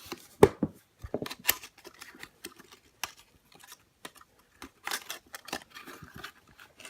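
Hands handling a die-cast model car's plastic and card blister package: irregular clicks, taps and crinkly scratches as it is worked on.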